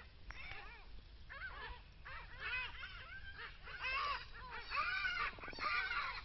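A chorus of many short, overlapping animal calls, each rising and falling in pitch, with a brief buzzing call about five and a half seconds in.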